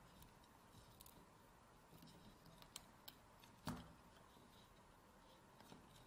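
Near silence with a few faint clicks of jumper-wire pins being pushed into an Arduino Uno's header sockets.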